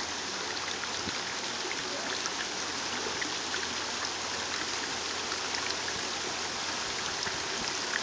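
Steady rushing noise of running water, with a few faint ticks scattered through it.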